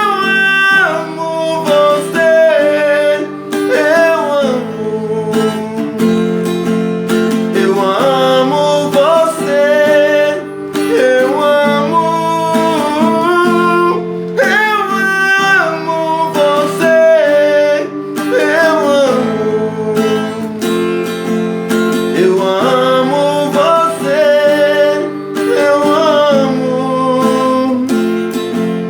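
Music: a sertanejo song for voice and acoustic guitar, the guitar strummed steadily under a gliding sung melody with no words made out.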